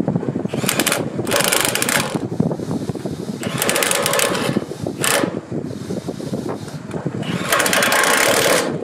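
Cordless impact driver hammering in five short bursts, the last about a second long, driving the bolts that hold the blades on a drum chipper's cutter drum.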